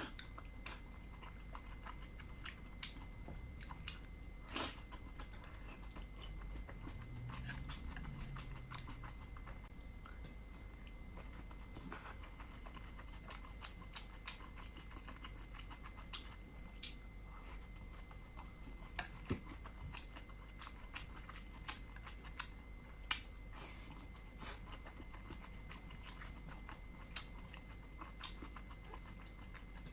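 Close-up chewing and biting of dumplings: wet mouth sounds with many irregular sharp smacks and clicks.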